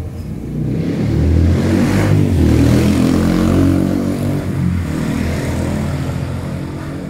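A vehicle engine passing close by, swelling about a second in and then slowly fading.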